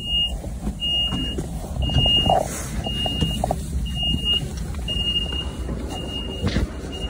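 An electronic warning beeper sounding one high, steady beep about once a second, each beep about half a second long, over low rumble and the knocks of walking.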